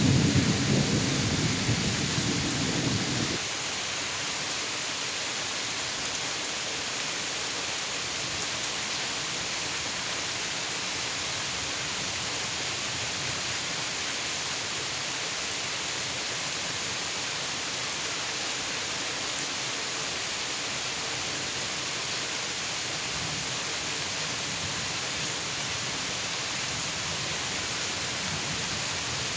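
Steady rain falling in an even hiss. A low rumble of thunder dies away over the first three seconds or so and ends abruptly.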